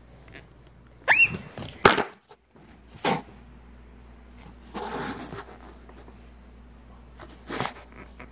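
A short rising cry, then a sharp knock and further knocks and rustling as a phone is dropped and hits the floor.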